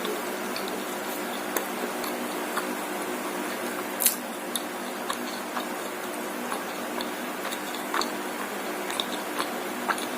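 Eating sounds of someone chewing martabak close to the microphone: scattered soft clicks and smacks, the sharpest about four seconds in, over a steady background hum.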